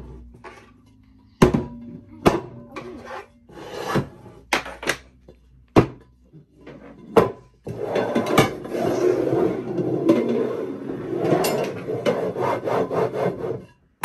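Upturned ceramic bowls set down and slid around on a tabletop. First come a handful of separate clunks, then from about eight seconds in several seconds of steady scraping and rubbing as the bowls are shuffled.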